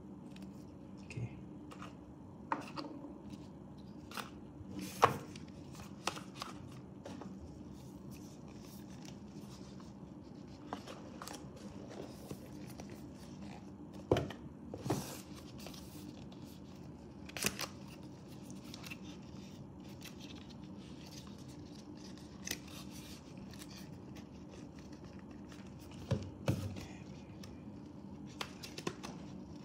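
Cardboard Apple Watch packaging being handled: boxes and sleeves slid apart, opened and set down, giving scattered soft taps and sharper knocks against a faint steady low hum.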